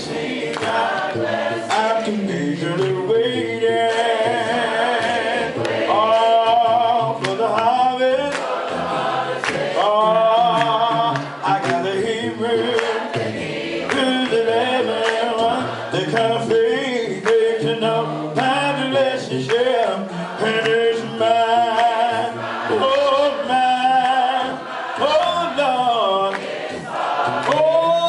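Gospel music with a singing choir as a soundtrack.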